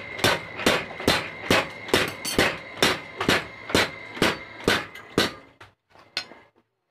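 Homemade 25 kg power hammer pounding a red-hot khukuri blade held in tongs, about two blows a second with a steady metallic ring, stopping about five seconds in. A few lighter knocks follow.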